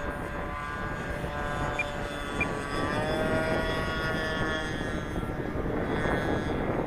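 RC airplane's motor and propeller whining in flight, its pitch rising a little about three seconds in. Wind rumbles on the microphone.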